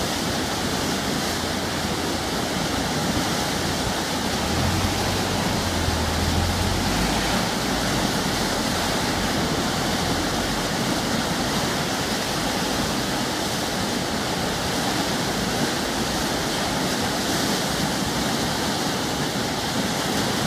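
Fast-flowing, churning river water rushing along a stone quay wall: a steady, loud rush of turbulent water.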